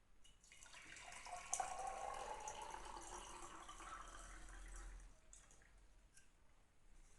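Water running from a tap into a vessel for about five seconds, its pitch rising slowly as the vessel fills, then shut off.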